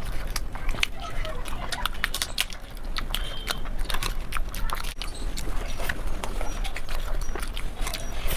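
Close-miked eating: rapid wet mouth clicks and chewing sounds, many small clicks a second with no pauses.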